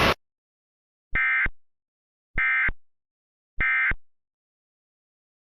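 Emergency Alert System end-of-message signal: three identical short bursts of digital data screech (the EAS 'NNNN' code), each about a third of a second long and about 1.2 s apart. A hiss cuts off just before the first burst.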